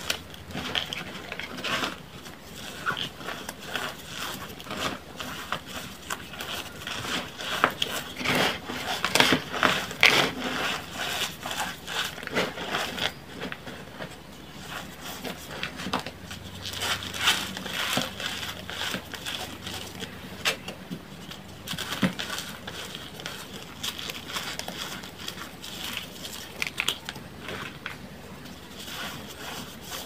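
Hands crushing and crumbling blocks of re-formed gym chalk and loose chalk powder: a continuous run of dry crunches and crackles, louder in clusters about a third of the way in and again a little past halfway.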